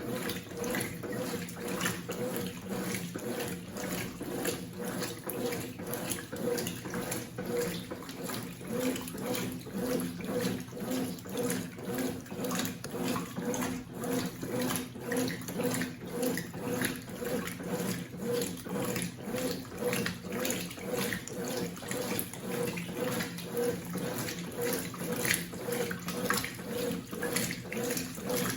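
Consul CWC08 8 kg washing machine running with water in the drum, a steady motor hum under water sloshing that swells and falls rhythmically about once or twice a second.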